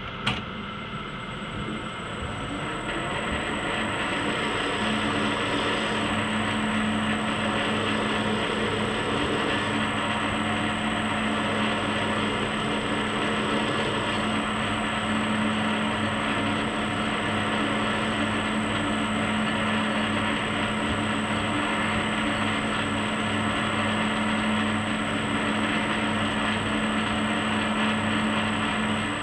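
Warco 280V metal lathe switched on with a click, spinning up over the first few seconds, then running steadily with a steady motor and gear hum.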